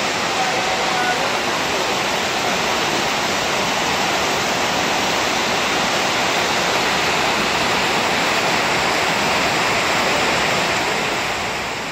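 Heavy rain pouring down steadily, beginning to fade near the end.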